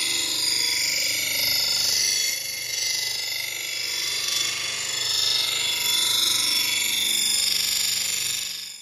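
Power tool grinding steel on the knife blade: a loud, steady, high-pitched screech that fades in and out.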